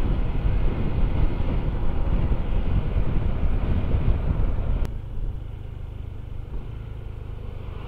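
Honda ADV160 scooter ridden on the road: dense engine, road and wind noise. About five seconds in, after a click, it drops suddenly to a quieter, steady low rumble.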